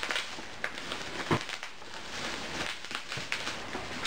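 Plastic bubble wrap crinkling and rustling as a bubble-wrapped parcel is handled and cut open, with scattered small crackles and clicks.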